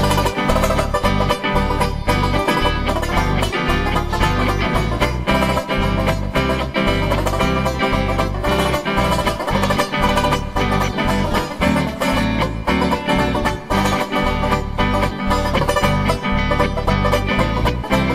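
Banjo music: a banjo picking a run of rapid plucked notes over a steady bass line.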